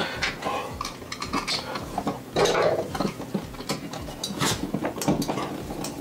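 Irregular light clicks and scrapes as a smart light switch's plastic body and metal mounting strap are pushed into a wall electrical box and fastened with a hand screwdriver.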